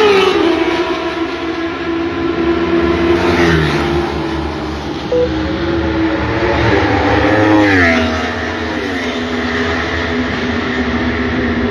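Racing motorcycle engines running at high revs, the engine note dropping in pitch three times: near the start, about three and a half seconds in, and about eight seconds in.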